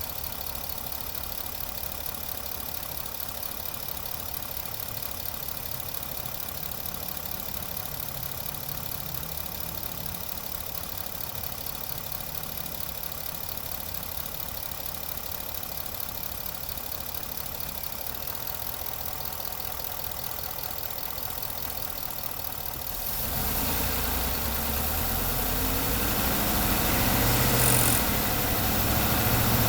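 2018 Ford F-150's 5.0-litre V8 engine running steadily, then getting louder about 23 seconds in and rising further, with a brief dip near the end. The owner reports a knock from this engine when accelerating, along with oil and coolant consumption.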